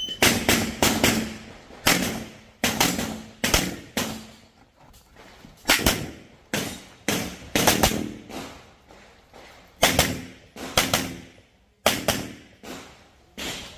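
Handgun fired in quick pairs and short strings, about two dozen shots with brief pauses between the groups.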